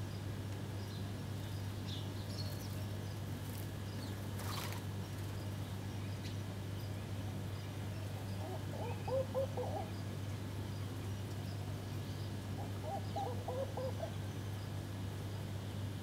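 Doves cooing: two short phrases of low, bubbling notes, about halfway through and again near the end, over faint scattered high chirps of small birds and a steady low hum.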